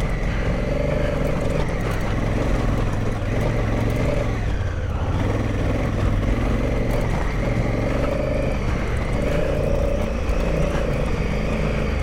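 2017 Honda Africa Twin's parallel-twin engine running steadily under way on a dirt forest track, heard from the bike's own onboard camera, the engine note rising and falling a little with the throttle.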